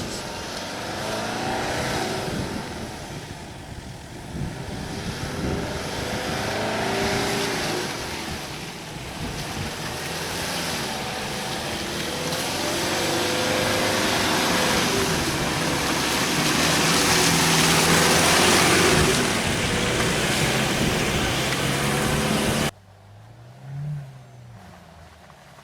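An SUV engine revving up and down under load while driving off-road, with a heavy hiss of tyres and rough ground around it. About 23 s in the sound cuts off abruptly to a much quieter engine note that rises and falls.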